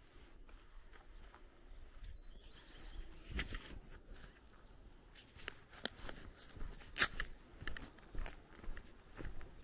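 Footsteps crunching on a gravel lane, irregular and uneven, the loudest step about seven seconds in.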